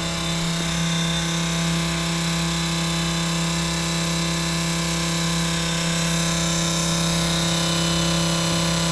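Electric pump on a diesel fuel tank running with a steady hum, powered from a battery: it works again.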